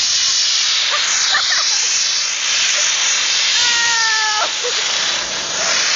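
Compressed-air blow gun hissing loudly and steadily. A little past halfway, a held, high, squeal-like cry sounds for just under a second over the hiss.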